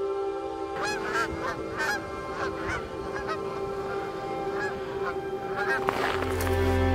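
A flock of geese honking, many overlapping calls that start about a second in and thin out near the end.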